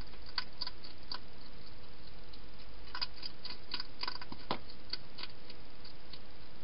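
Hedgehog eating at the bowls inside a plastic feeding box: irregular small crisp clicks in short clusters, with one louder knock about four and a half seconds in, over a steady hiss.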